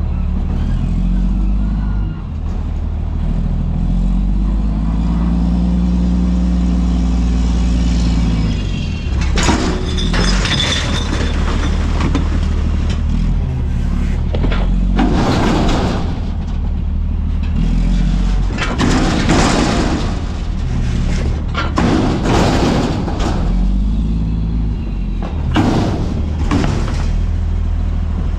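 Garbage truck's diesel engine running up and down as the hydraulic arms lift and tip a dumpster over the hopper. Trash crashes into the hopper and the steel dumpster bangs, loudest in several bursts through the second half.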